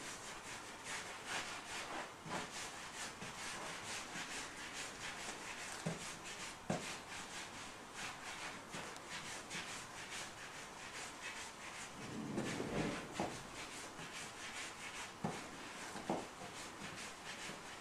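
Hands rolling fresh pasta dough into thin sticks on a wooden pastry board: faint, repeated rubbing strokes of palms and dough on the wood, with a few light knocks.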